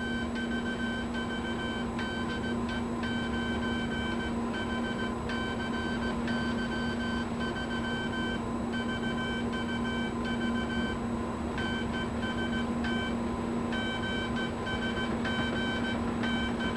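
Morse code sent by hand on a telegraph key, heard as a high beeping tone keyed in dots and dashes, in groups with short pauses between them, over a steady low hum of radio-room equipment.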